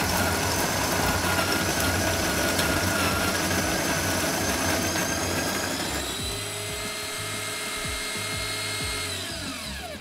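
Wilfa Svart electric grinder with 40 mm conical burrs grinding coffee beans, noisy. About six seconds in, the dense grinding noise thins to a steadier motor whine, which falls in pitch near the end as the motor winds down.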